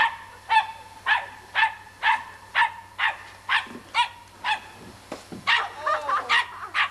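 A dog barking over and over, about two barks a second, with a short pause near the end.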